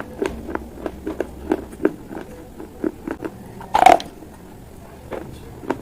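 Baked clay pot pieces being bitten and chewed close to the microphone: a steady run of short, dry crunches, about three a second, with one loud, longer crunch about two-thirds of the way through.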